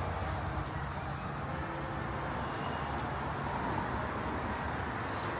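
Steady background noise: a low rumble under an even hiss, with no distinct event standing out.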